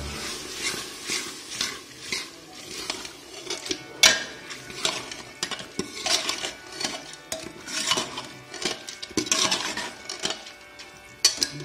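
Steel ladle scraping and knocking against the inside of a pressure cooker while stirring chana dal (split chickpeas) frying in oil: a string of irregular scrapes and clinks, the sharpest knock about four seconds in.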